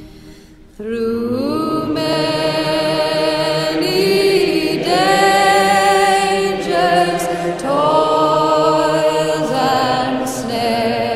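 Background music: slow singing with long held notes that glide between pitches. A new phrase begins about a second in, after a brief dip.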